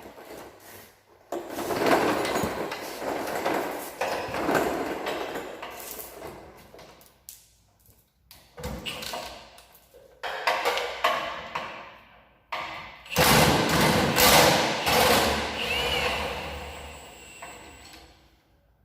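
A series of heavy thuds and scraping clatters, each dying away over a second or two, with the loudest pair about two-thirds of the way through.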